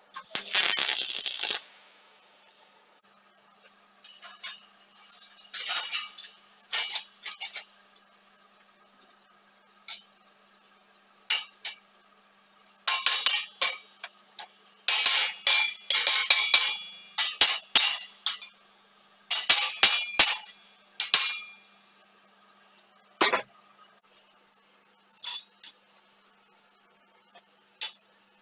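A MIG welder crackling for about two seconds at the start as a tack weld goes onto sheet steel. Then a hammer tapping a steel panel: bursts of sharp metallic strikes, several a second, each leaving the plate ringing, with a few lone taps near the end.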